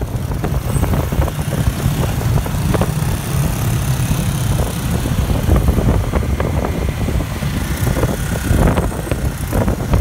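Motor scooter traffic heard from the back of a moving motorbike: a steady low rumble of small engines and road noise, with no break.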